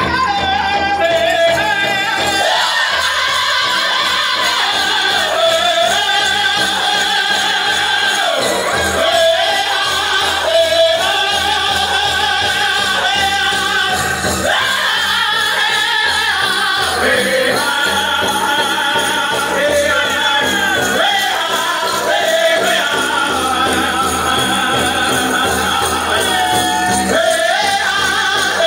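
Powwow drum group singing a high-pitched chicken dance song in unison over the big drum, with the jingle of dancers' bells.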